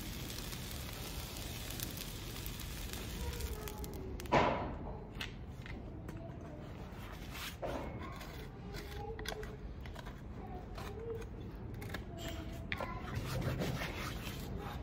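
Hot horseshoe pressed against a horse's hoof wall, burning the horn with a steady sizzling hiss for about four seconds. This is the hot fit that seats the shoe. Then comes a single sharp knock, followed by only faint scattered clicks.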